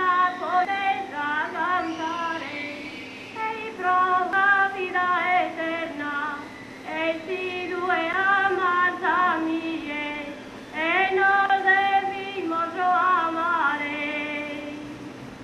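A woman singing a slow folk melody in a high voice, with wavering, ornamented phrases separated by short breaths.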